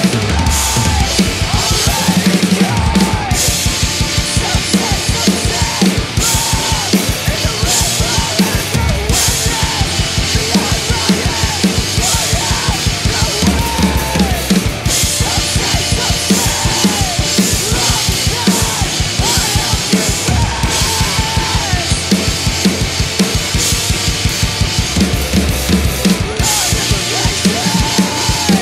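Acoustic drum kit played hard and fast, with rapid, evenly spaced kick-drum strokes, snare hits and cymbal crashes. It is played along to a recorded post-hardcore band track whose pitched guitar or vocal lines run underneath.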